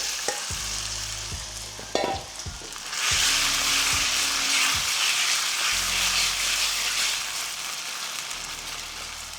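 Marinated chicken pieces sizzling in hot oil in a non-stick pan on high heat, the sizzle swelling about three seconds in and staying loud. A single sharp knock about two seconds in.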